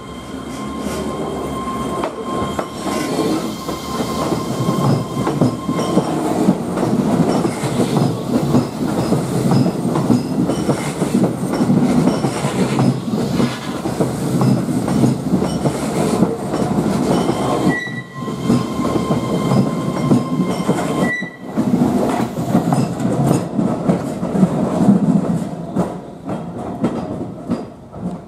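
Keihan 13000-series electric train running past close by: a continuous rumble and clatter of steel wheels on the rails. The sound breaks off for a moment twice, about two-thirds of the way through.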